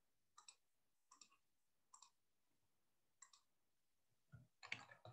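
Faint, sparse clicks of a computer mouse and keyboard, a few single clicks a second or so apart, then a quicker run of keystrokes near the end as text is typed.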